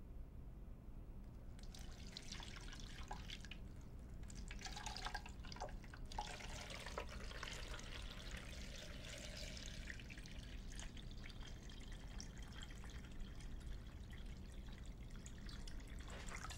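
Water poured from a glass pitcher into a plastic Vitamix blender container holding cabbage wedges, a steady splashing trickle starting about a second and a half in.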